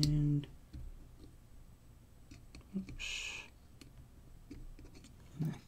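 Faint small clicks of metal multimeter probe tips tapping on an LED circuit board, with a short hiss about three seconds in.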